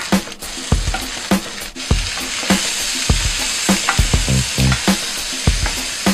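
Vegetables sizzling as they are stir-fried in a hot pan with meat. The sizzle grows louder about two and a half seconds in, over background music with a steady beat.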